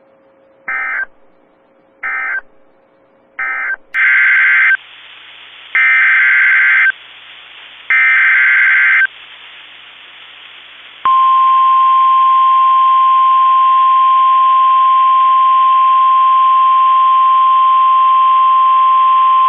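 Emergency Alert System SAME data bursts over NOAA Weather Radio: three short end-of-message bursts, then three longer header bursts of warbling digital tones for the next alert. About eleven seconds in, the steady 1050 Hz weather radio warning alarm tone begins and holds loud and unbroken, announcing a tornado warning.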